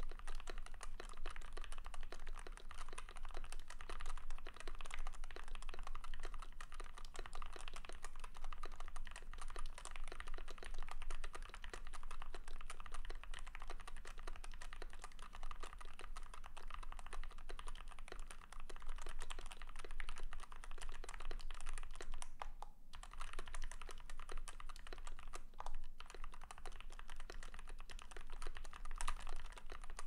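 Fast, continuous typing on a Womier WK61 60% mechanical keyboard with lubed Outemu red linear switches, PBT pudding keycaps and a steel plate with tape mod and foam dampening: a dense stream of key clacks with a short pause about three-quarters of the way through.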